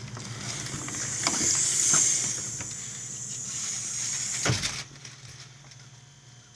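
A steady hissing noise with a few faint knocks over a low hum; the hiss cuts off suddenly about three-quarters of the way through, leaving only the hum.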